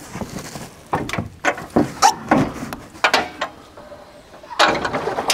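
Dual steel swing-out carriers on a CBI Off-Road aftermarket rear bumper being unlatched and swung open: a string of metal clicks and clanks, with a denser rattle near the end.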